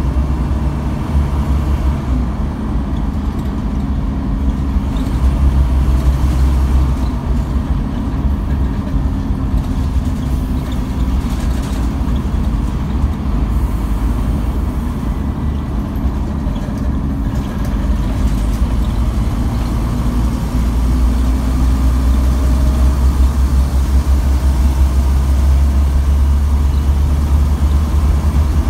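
Scania N230UB OmniCity bus's five-cylinder diesel engine heard from inside the passenger saloon, with a heavy low drone under road noise. The engine note rises twice as the bus pulls away through the gears, once early on and again about two-thirds of the way in, getting louder the second time.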